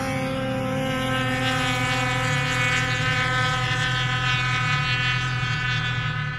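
Snowmobile two-stroke engine running at steady high revs, an even, high-pitched drone.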